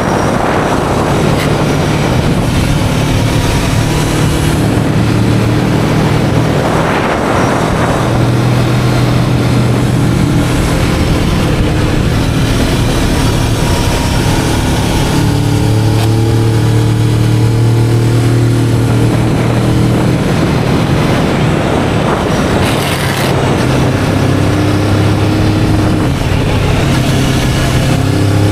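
Kawasaki Vulcan S 650's stock parallel-twin engine running while riding, its pitch stepping up and down a few times with throttle and gear changes and rising near the end. Heavy wind buffeting on the action camera's built-in microphone runs under it.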